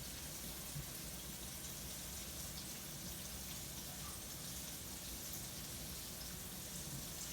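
Hot grease sizzling faintly and steadily in a cast iron skillet, with small scattered crackles.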